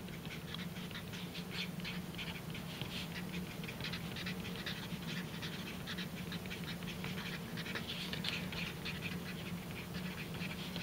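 Felt-tip marker writing on paper: a run of short squeaky, scratchy strokes as letters are drawn, over a faint steady low hum.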